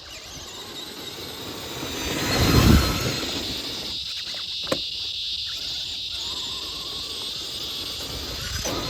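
Traxxas Summit RC truck's electric motor and drivetrain running as it drives through sand. A gust of wind on the microphone swells about two and a half seconds in, and there is one sharp click a little before the five-second mark.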